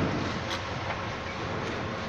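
Diesel concrete mixer pump running steadily in the background: an even hiss with a faint low hum, and a light click about half a second in.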